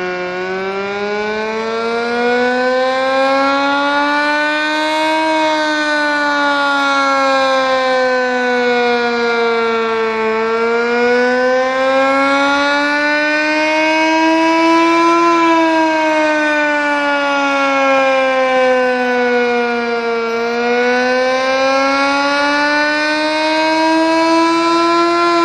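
Sentry 10V outdoor warning siren sounding a wail, its pitch slowly rising and falling about every ten seconds. It sounds "sick": a worn siren that has seen better days but is still punchy.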